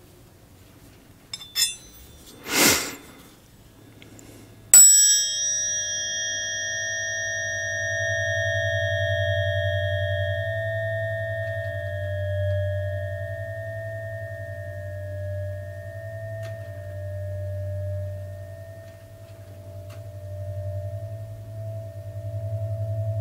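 Metal tuning forks struck about five seconds in: a bright strike whose high overtones die away over a few seconds, leaving a low hum and a higher tone ringing on. The ringing pulses and swells and fades as the forks move near the microphone. Before the strike there are a few light clicks and a short rush of noise.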